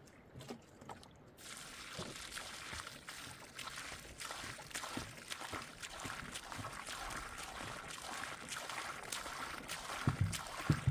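Steady rain falling with a fine patter, coming in suddenly about a second in. Near the end a run of dull low knocks starts.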